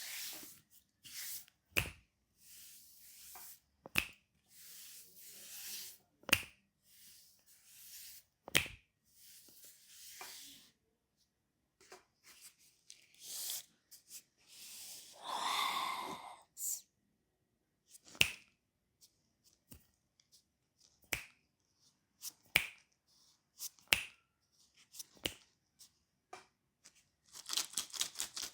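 Hands massaging a bare leg: swishing rubbing strokes on skin, broken every couple of seconds by a sharp smack or snap. Near the end the hands switch to rapid rhythmic tapping, about six strikes a second.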